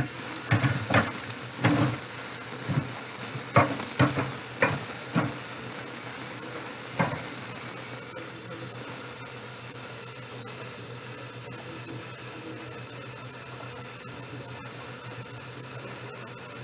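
Kitchen tap running steadily into a metal cooking pot in a stainless steel sink. Over the first seven seconds or so the pot knocks and clanks against the sink as it is scoured and rinsed; after that only the water runs, filling the pot.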